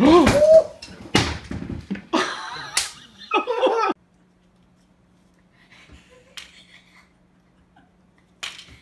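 Two cats fighting: a short yowl at the start, then slaps and scuffling for about four seconds. It stops abruptly, leaving only faint small rustles.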